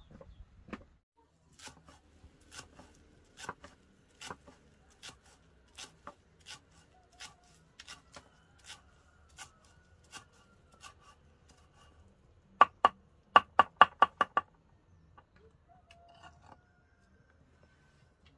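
Knife chopping on a cutting board: light, evenly spaced chops about one every three-quarters of a second, then a quick run of about eight louder chops near the end.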